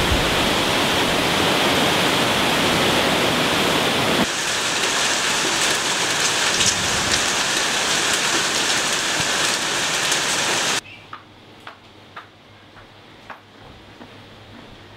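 Steady hiss of heavy rain, changing in tone about four seconds in and cutting off abruptly about eleven seconds in, leaving a much quieter background with a few faint clicks.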